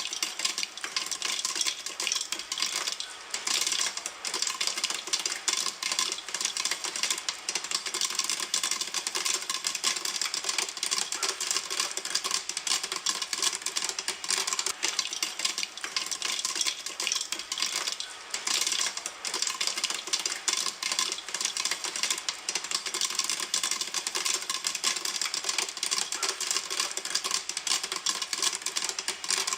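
Popcorn popping in a pan: a steady, dense crackle of many small pops a second.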